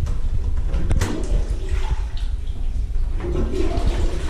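Jacob Delafon toilet flushing: a steady rush of water, with a sharp click about a second in.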